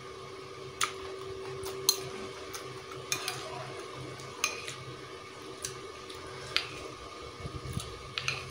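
A metal spoon clinking and scraping against a ceramic soup bowl while someone eats, in short sharp clinks about once a second, with two quick ones close together near the end.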